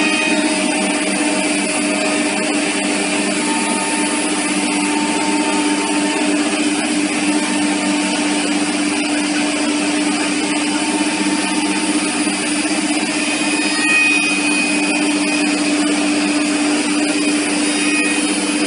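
WoodTec VP-1325 CNC router milling a wave relief into a wooden panel: a steady spindle hum and cutting noise together with the dust extraction. A brief higher tone rises over it about 14 seconds in.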